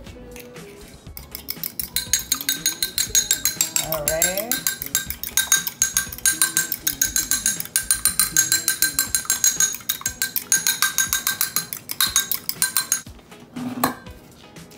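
A raw egg being beaten in a glass measuring cup, the utensil clinking rapidly and evenly against the glass, several strokes a second, for about twelve seconds before it stops.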